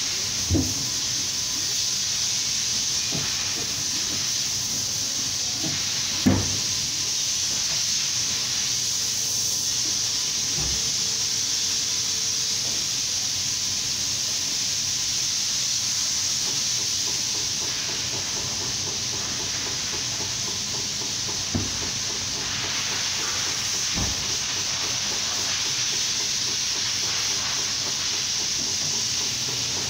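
A steady hiss, with four short knocks of hand tools on the wheel and tyre changer, the loudest about six seconds in.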